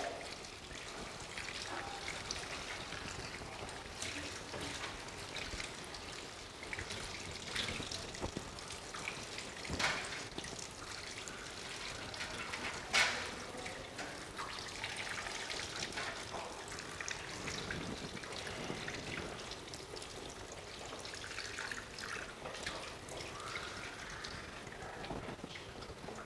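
Tap water running into a stainless steel sink as a whole fish is rinsed and rubbed clean under the stream, with splashing throughout and two sharper knocks midway.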